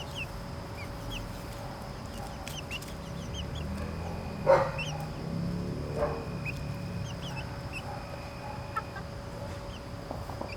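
Backyard chickens clucking and calling, with two louder calls a little before and after the middle.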